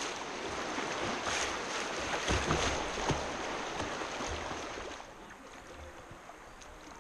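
Whitewater rushing and splashing around a kayak's bow as it runs a riffle, with a few low thuds. About five seconds in the rush falls away to quieter moving water as the kayak reaches the calm stretch.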